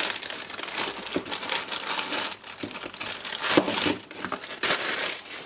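Plastic packaging crinkling and rustling as a spare controller unit is handled, with a few light knocks among the rustling.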